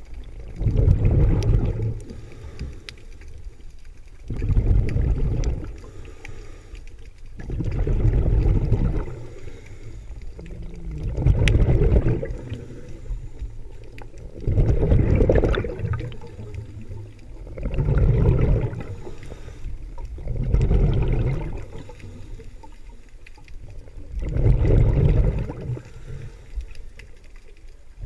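Scuba diver breathing through a regulator underwater: a burst of exhaled bubbles about every three and a half seconds, eight breaths in all, with quieter pauses between.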